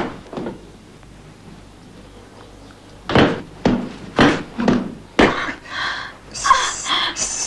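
A bed's headboard banging against a wall in a steady rhythm, about two knocks a second, after a couple of single thumps at the start. Near the end a higher squeaking comes in.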